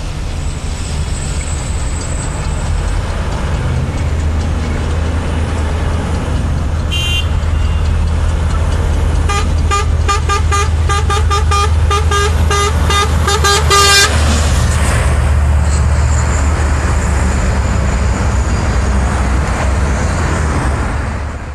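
Scania R420 truck's diesel engine running as it draws near, passes and pulls away, with its horn sounding: one short toot about 7 seconds in, then a quick run of toots, about three a second, ending in a longer toot as it passes.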